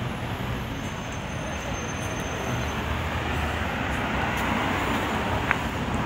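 Street traffic noise: cars on a city street, a steady rush of tyre and engine noise that grows a little louder about halfway through.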